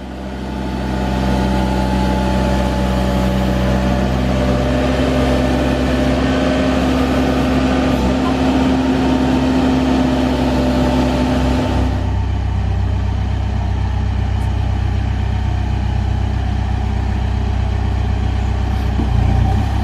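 Diesel engine of a Case 580 Super N backhoe loader running steadily. About twelve seconds in, the higher clatter drops away and the sound turns duller.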